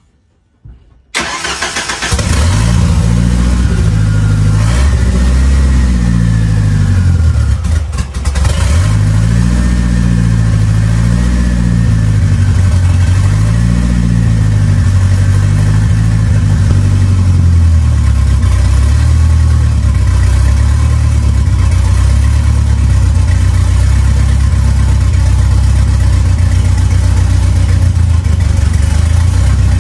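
Turbocharged Ford 2.3-litre Lima four-cylinder engine starts about a second in and idles, its speed rising and falling several times before settling to a steady idle as it warms up.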